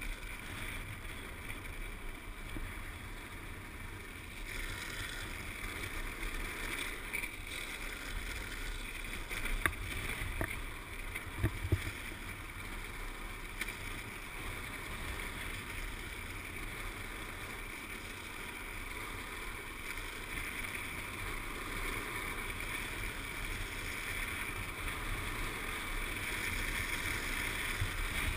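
Freebord wheels rolling downhill on asphalt, a steady rushing rumble with wind on the microphone, with a few sharp knocks from the road surface around the middle and growing louder toward the end as speed builds.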